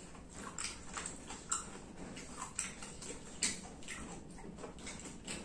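Quiet eating sounds: soft, irregular clicks and smacks of chewing and of gonggong (dog conch) shells being handled as the meat is picked out.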